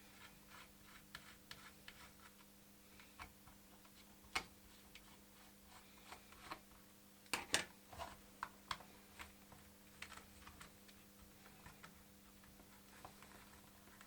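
Faint, irregular small clicks and taps of a small screwdriver and tiny screws against the plastic case and circuit board of a radio-control transmitter being taken apart, over a steady low hum. The loudest clicks come about four and seven and a half seconds in.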